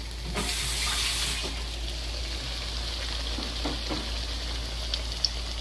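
Masa quesadillas deep-frying in hot oil. The sizzle surges for about a second, half a second in, then settles to a steady sizzle.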